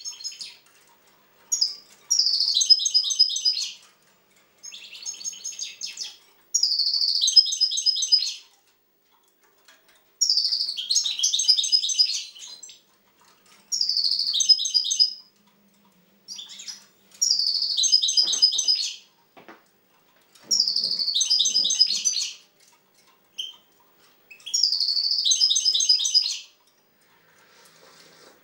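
Caged European goldfinch singing: repeated high, twittering song phrases, each one to two seconds long, with short pauses between.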